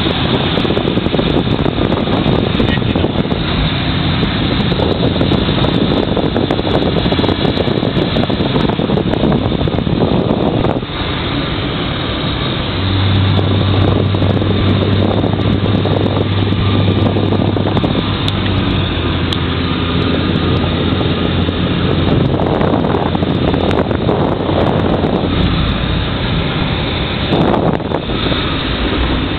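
Cabin noise of a 2002 Chrysler PT Cruiser with its 2.4-litre four-cylinder, moving at highway speed: a steady rush of road and wind noise over the engine. A low steady hum comes in for several seconds in the middle.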